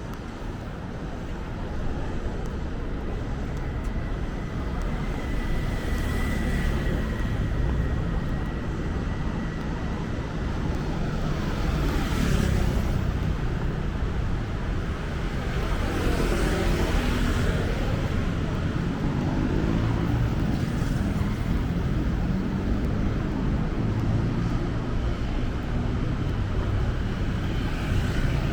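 City street traffic: a steady low rumble of engines and tyres, with vehicles passing close by twice, about twelve seconds in and again a few seconds later.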